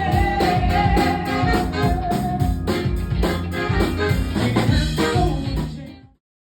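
A band playing upbeat music with a drum kit keeping a steady beat and one long held note in the first half, ending abruptly about six seconds in.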